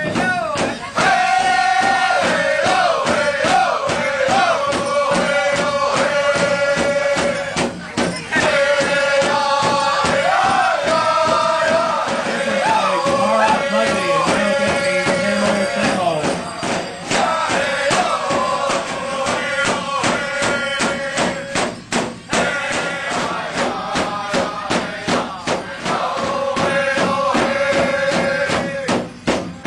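Powwow drum group: several voices singing a high-pitched chant in repeated phrases that fall in pitch, over a steady beat struck together on a large drum.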